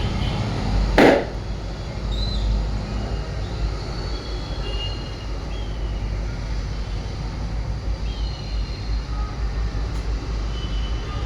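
Steady low rumble of vehicle traffic and engines, with one short, loud hiss-like burst about a second in and a few faint, high chirps.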